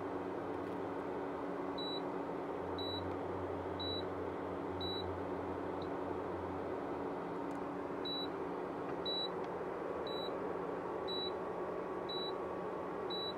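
Induction cooktop giving short high beeps about once a second, pausing for a few seconds in the middle, over a steady hum. The beeping is its warning signal, with the hob showing an E1 error code.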